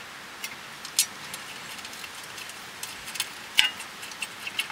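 Irregular metallic clicks and clinks from a rear brake caliper being fitted over the rotor and its bolts being started. The sharpest clicks come about a second in and at about three and a half seconds, with a quicker run of ticks near the end.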